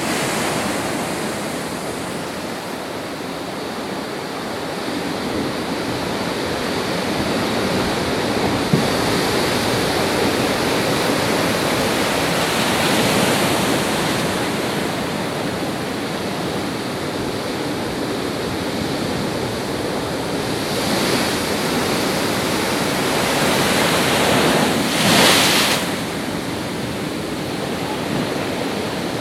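Heavy sea surf: waves breaking and washing in a continuous roar of water, swelling louder several times, with the biggest crash about 25 seconds in.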